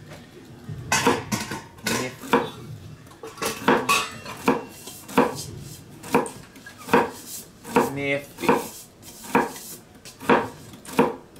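Chef's knife chopping celery into thin slices on a wooden cutting board: steady knocks of the blade against the board, between one and two strokes a second.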